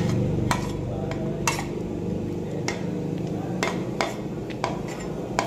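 Metal spoon knocking and scraping against the edge of a plate, tipping sliced garlic into a wok: about seven sharp clinks at uneven intervals.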